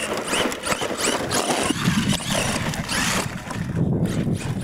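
Radio-controlled monster truck driving on dirt, its motor whine rising and falling over and over as the throttle is worked, with tyre and dirt noise underneath.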